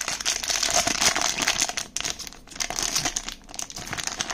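Plastic blind-box packaging crinkling and crackling as hands open it and pull out the item inside.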